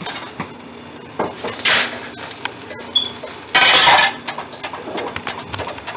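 Metal stockpot lid lifted off a cooking pot, with clanks and clinks of metal cookware and one brief ringing clink. Two harsh scraping rasps stand out, the louder, half-second one a little past the middle.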